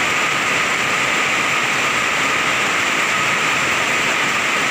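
Heavy rain pouring down steadily, a dense, even hiss with no let-up.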